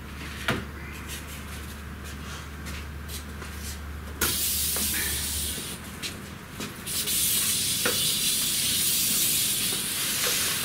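A steady hiss of rushing air starts suddenly about four seconds in and grows louder about seven seconds in, over a low hum that stops midway. A few light knocks sound along the way.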